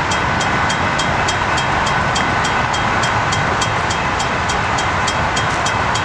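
A train running, a steady rushing noise with a quick, even ticking of about four ticks a second.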